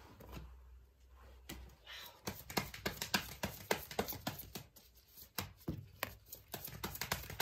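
Light Seer's Tarot cards being shuffled by hand: a run of quick, irregular card clicks and flicks that grows busier after the first couple of seconds.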